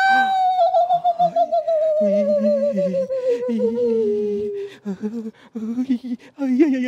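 A long wavering vocal wail that slides slowly down in pitch over several seconds, with shorter, lower vocal sounds coming and going beneath it. Near the end a steady low held tone begins.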